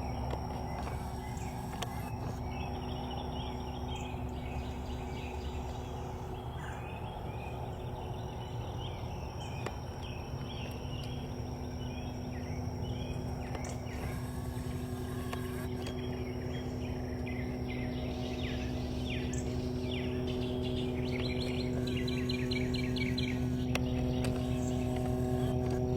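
Birds giving short chirping calls, with a run of rapid repeated notes near the end, over a steady low hum with a few held tones that grows a little louder toward the end.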